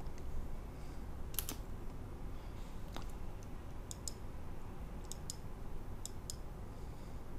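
Computer mouse clicking: a handful of sharp clicks, most in quick pairs, roughly one a second from about a second in, over a low steady hum.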